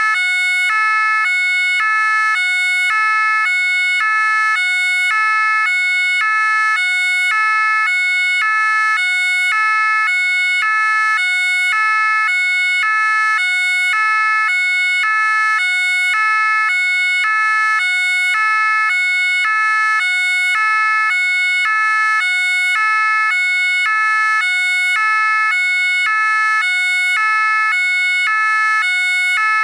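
French gendarmerie two-tone siren sounding continuously, switching evenly back and forth between a higher and a lower note in a steady repeating cycle.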